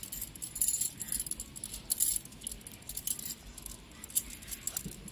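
A bundle of hook-shaped metal wire tent pegs clinking and jingling together in the hands as they are sorted and counted, in a run of light, irregular metallic clicks.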